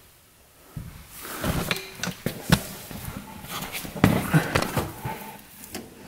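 Scattered knocks, clunks and rustling: handling noise from someone moving around and working under the UTV during an engine oil drain.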